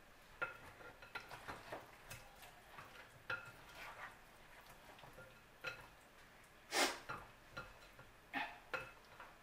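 Wooden spatula and slotted serving spoon tapping and scraping against a glass mixing bowl as sauce-coated chicken wings are tossed. Soft, scattered clicks and knocks, with one louder clatter about two-thirds of the way through.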